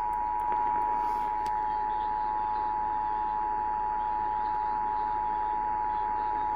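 Emergency Alert System attention signal: the standard two-tone alarm (853 Hz and 960 Hz sounding together) held steady, received over AM radio with a hiss of static underneath. It announces that an emergency message, here a severe thunderstorm warning, is about to follow.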